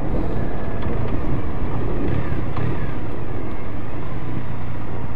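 Triumph Bonneville T100's parallel-twin engine running at a steady pace under way, heard from a camera mounted on the bike.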